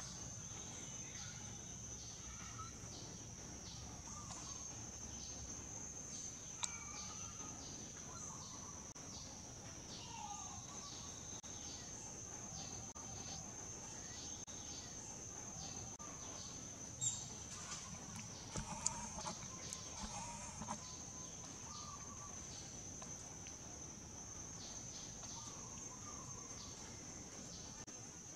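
Steady high-pitched drone of insects, with faint bird chirps here and there and a few soft clicks.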